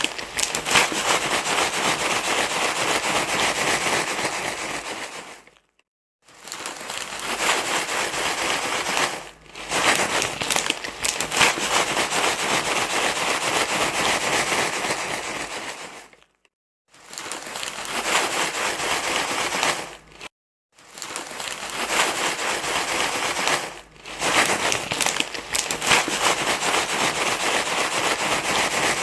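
Crinkling, rustling noise, like something being crumpled, played to soothe a crying baby. It runs in stretches of several seconds, broken by three short silences.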